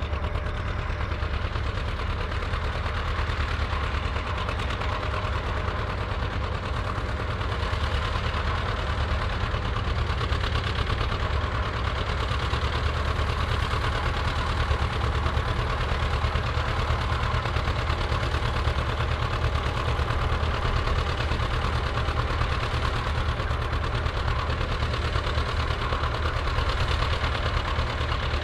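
Vintage John Deere tractor engine running steadily, a continuous low chugging with no change in speed.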